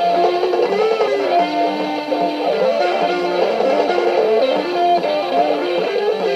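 Electric guitar playing a melodic line of single notes, some of them bent up and down in pitch, over steady lower notes.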